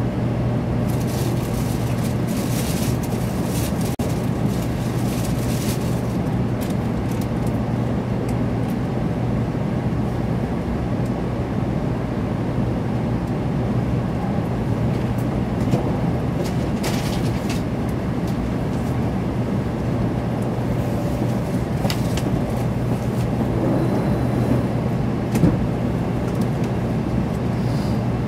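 Cabin noise inside a 700 series Shinkansen: a steady rumble with a low hum, broken by a few faint clicks.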